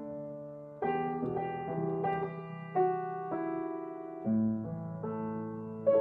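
Upright piano playing slow chords, each struck chord ringing and fading before the next, with new chords about a second in, near three seconds, just past four seconds and near the end.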